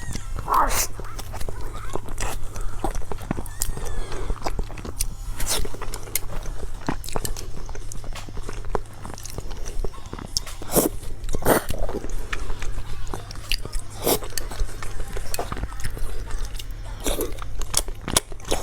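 A person eating close to the microphone: chewing, with many irregular wet smacks and clicks.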